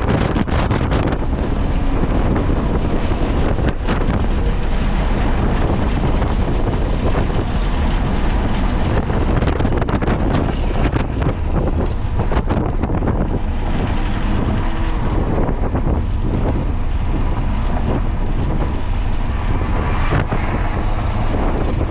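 Heavy wind rush buffeting an onboard camera microphone as a vehicle laps a racetrack at speed, with the engine and road noise buried under it.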